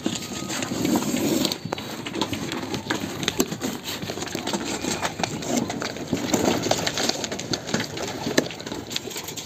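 Scissors cutting and scraping along packing tape on a cardboard box, a run of irregular small clicks and scrapes.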